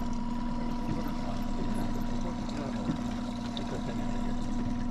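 Boat motor running steadily as the boat trolls, a constant even hum over a low rumble.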